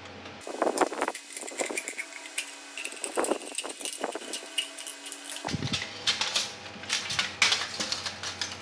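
Irregular clicking and knocking of small parts being handled and worked by hand.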